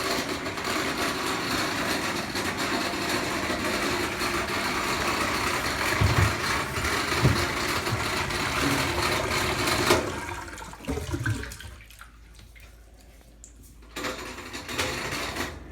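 LG WT7100CW top-load washer draining, its drain pump running with a loud rough noise over the rush of water, which the owner takes for a bad pump. About ten seconds in the noise dies down to a low hum, then picks up again near the end.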